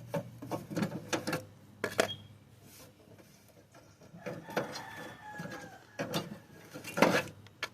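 Metal hand tools clinking and knocking while bolts are worked loose on an old cable-operated gas pedal, with a short squeak a little after the middle.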